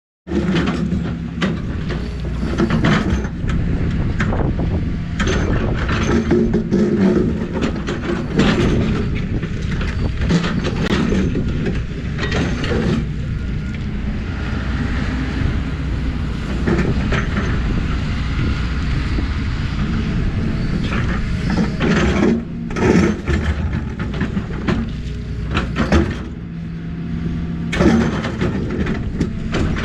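Excavator's diesel engine running steadily, with frequent irregular clanks and scrapes of the bucket and steel working the dirt.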